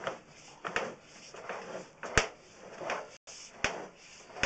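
Sewer inspection camera's push cable being pulled back by hand: a few sharp, irregular clicks and knocks over a faint hiss.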